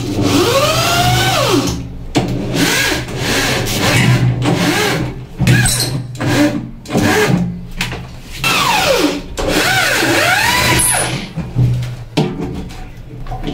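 Power drill run in repeated trigger pulls, its motor pitch rising and falling with each pull.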